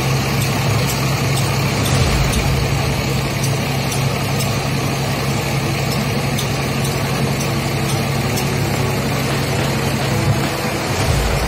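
Mitsubishi PS120 dump truck's diesel engine running steadily with a low, even hum as the truck tips its sand load with the bed raised.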